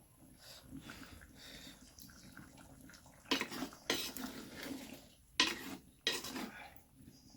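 A metal spoon knocking and scraping against a clay cooking pot as a simmering curry is stirred, with four louder strokes in the second half.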